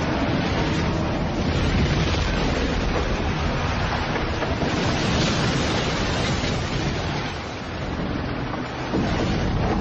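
Storm at sea: a steady, dense rush of wind, rain and waves, with a dip in level about seven seconds in.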